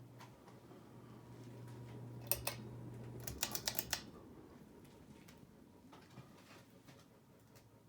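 Hampton Bay Redington IV ceiling fan's motor humming, then several sharp clicks and rattles as it is switched, with the hum cutting off about three seconds in. The soft rush of air fades as the fan winds down.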